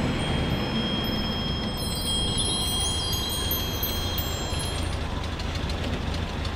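Chime sound effect: several high ringing tones hold steady, with a cluster of glittering higher chimes about two to four seconds in, over a steady low rumble.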